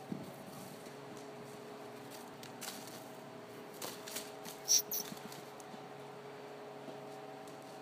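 A pinto colt's hooves thudding softly on the dirt arena footing as it trots loose, a few scattered thuds and clicks over a steady hum. One short, sharp sound a little past the middle is the loudest thing.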